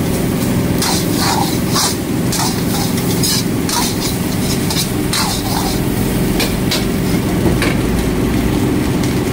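Metal ladle scraping and clanking against a steel wok as fried rice is stirred and tossed, in irregular strokes about once or twice a second, over a steady low rumble.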